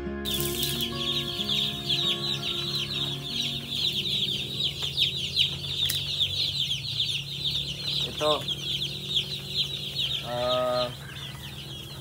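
A brooder full of broiler chicks peeping constantly: a dense chorus of high, downward-sliding cheeps.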